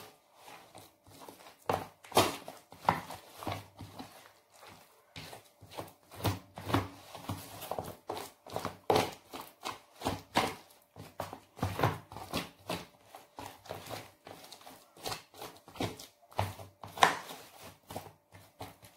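Wooden spatula pressing and scraping a layer of sticky caramel-peanut brittle flat in a metal baking tray: irregular knocks and scrapes, one or two a second.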